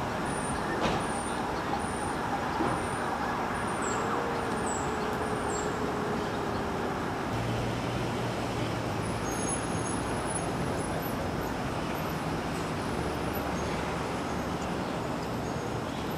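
Steady city traffic noise, an even wash of road vehicles with no single event standing out.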